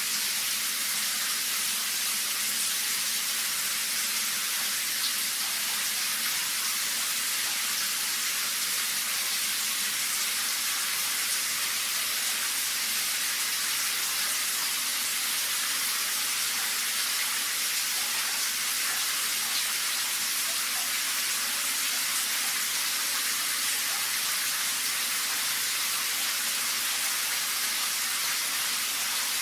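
Shower running: a steady, even hiss of water spraying and falling, with no change in flow.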